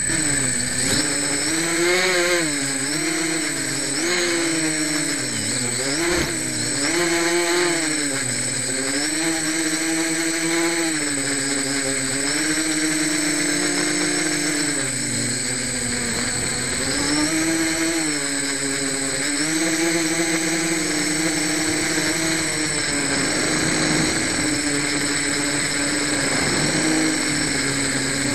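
Quadcopter motors and propellers heard from the craft's own camera, with its props not yet balanced. The motors spin up about a second in, then the whine rises and falls in pitch as the throttle changes in flight.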